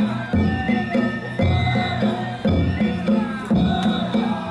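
Danjiri festival float's narimono: taiko drum and hand gongs playing a steady rhythm of strong beats about once a second, with high wavering pitched tones over the top.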